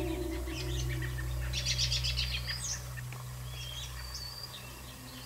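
Small songbirds chirping and calling, with a quick run of chirps about two seconds in and a few thin whistled notes after it.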